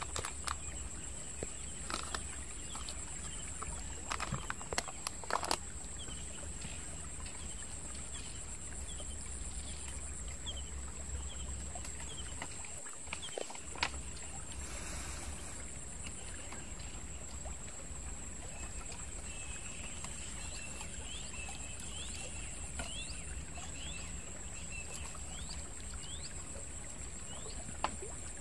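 Outdoor ambience dominated by a steady, high-pitched insect drone, with a low steady rumble underneath. Runs of short rising chirps come through and fade, and a few light clicks sound in the first six seconds.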